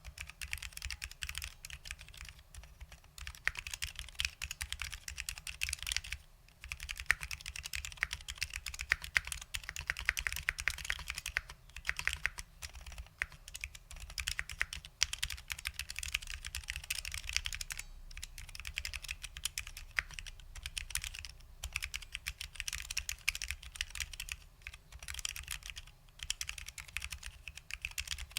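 Continuous fast typing on a custom 60% keyboard with lubed SKCL Green Alps switches and OG ABS doubleshot Alps keycaps: a dense stream of key clicks, with a brief pause about six seconds in and another around twelve seconds.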